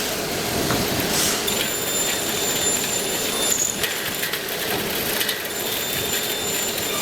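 CNC router machine running, a steady mechanical noise with thin high-pitched whines that come in about a second and a half in, drop out around the middle and return near the end.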